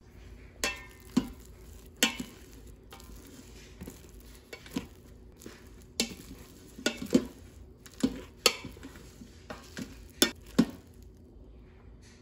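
Plastic rice paddle knocking and scraping against the stainless steel inner pot of an Instant Pot while stirring and scooping cooked sushi rice, in a string of irregular sharp clicks and scrapes.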